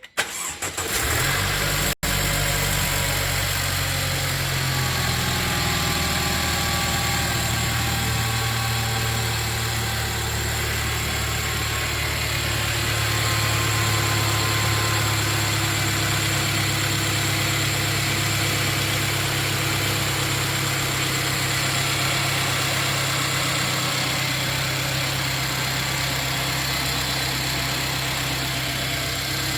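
Mercedes-Benz W205 C-Class engine starting, catching after a short burst of cranking, then idling steadily. A faint whine slides slightly down in pitch during the first several seconds of idle. This is the abnormal noise at start-up that the owner is documenting.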